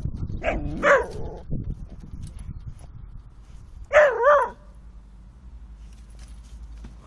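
Whippets play-fighting, giving two short, high, wavering yelping whines: one about half a second in and a louder one about four seconds in.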